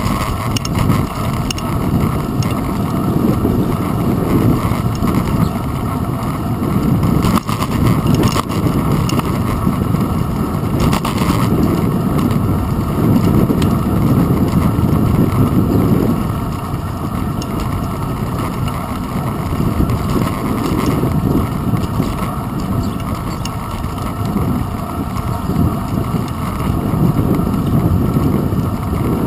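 Wind and road rumble from a bicycle riding along a paved path, picked up by a GoPro Hero 2 camera mounted on the handlebars. A loud, steady rushing noise that swells and eases unevenly.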